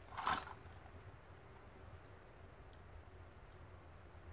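Handling of an 1858 Remington black powder revolver while it is being loaded: a short scraping sound about a quarter second in, then two faint clicks a second or two later.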